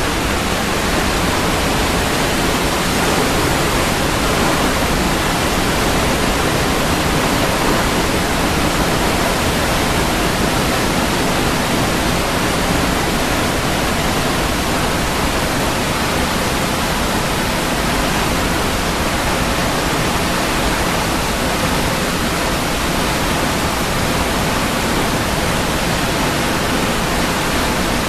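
Waterfall: water falling and splashing in a steady, dense rush of noise.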